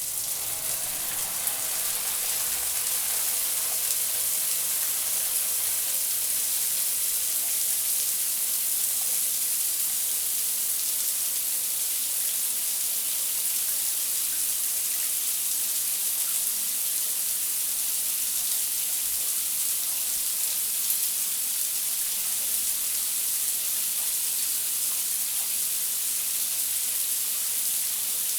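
Shower running steadily: water spraying from the showerhead in an even, high hiss.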